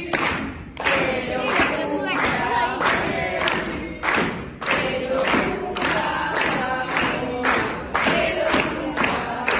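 Voices singing together over a steady beat of about two strokes a second.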